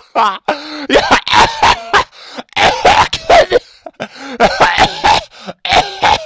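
A man laughing hard in loud, breathless fits of short bursts.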